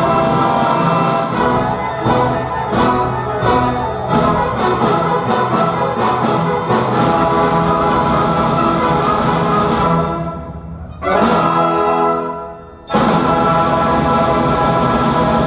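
Youth symphony orchestra playing, strings with brass: a run of short separated chords in the first few seconds, then sustained full playing. About ten seconds in the sound drops away twice briefly before the full orchestra comes back in loud.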